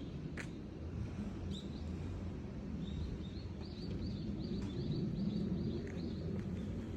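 Steady low background rumble with a small bird chirping a quick run of short, high calls from about three to six seconds in.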